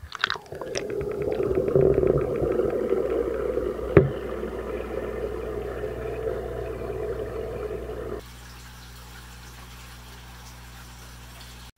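Aquarium water running and bubbling in a steady watery rush, with one sharp click about four seconds in. A little after eight seconds it cuts abruptly to a quieter steady hum.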